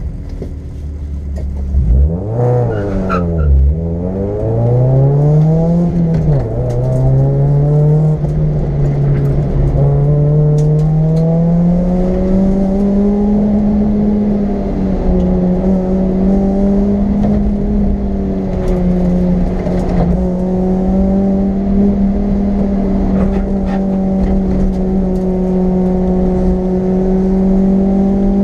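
A race car's engine heard from inside the cabin as it launches from the start line. The revs swing sharply up and down several times in the first few seconds, climb in steps, then hold a steady high note with brief small dips as the car drives up the track.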